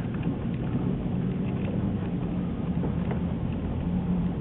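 A motor vehicle's engine running steadily, with a constant rushing noise over it.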